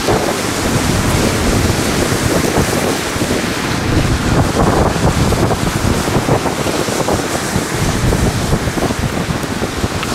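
Wind buffeting the microphone in an unsteady low rumble, over the steady wash of ocean surf.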